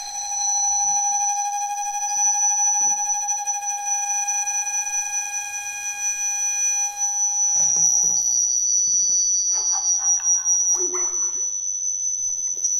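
Audio feedback from a Skype group call between computers placed close together: several steady whistling tones held at once. About eight seconds in, the lower tones cut out, leaving one high tone with short tones flickering beneath it.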